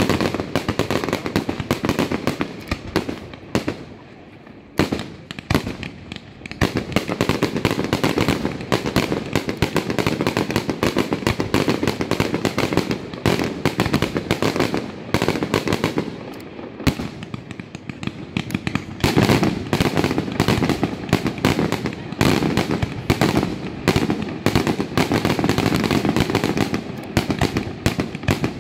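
Fireworks display: a rapid, unbroken string of bangs from aerial shells bursting overhead. The bangs thin out briefly a few seconds in, then come thick again for the rest of the time.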